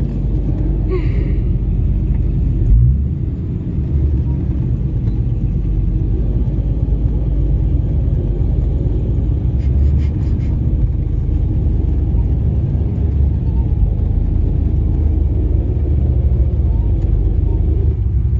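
Ford Mustang engine running at idle, a steady low rumble heard from inside the cabin, with a brief louder swell about three seconds in.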